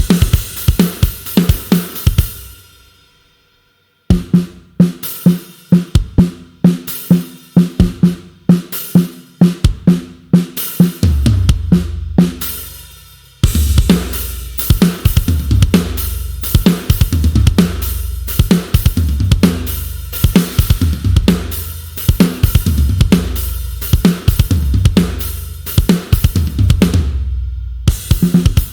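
Sampled acoustic rock drum kit from GetGood Drums' One Kit Wonder Aggressive Rock library playing fast grooves of kick, snare, hi-hat and cymbals. It rings out and stops about two seconds in, then starts again about four seconds in. From about eleven seconds a steady low bass rumble sits under the beat.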